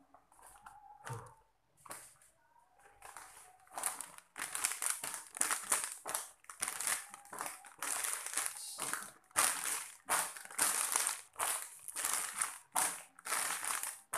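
Plastic snack packets crinkling as a handful of small ciki bags is squeezed and shuffled in the hands. The crinkling starts about four seconds in and goes on in quick, dense bursts.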